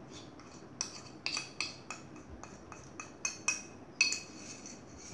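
Metal spoon tapping and scraping against the inside of a ceramic bowl, a string of irregular light clinks as powder is knocked out of it.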